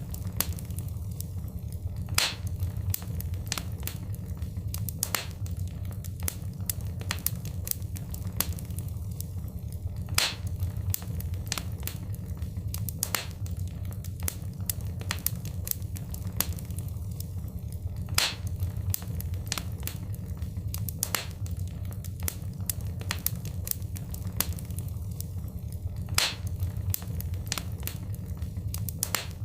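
Wood fire crackling in a fireplace: dense small snaps and pops over a steady low rumble of the flames, with a louder pop about every eight seconds.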